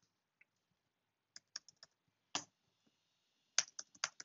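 Typing on a computer keyboard: a few separate keystrokes, one louder one, then a quicker run of keystrokes near the end.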